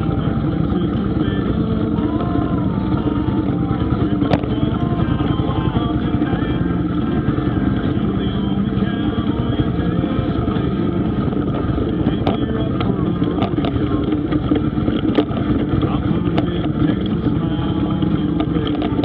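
Motorcycle engine running steadily at cruising speed on a gravel road, with a few sharp clicks along the way.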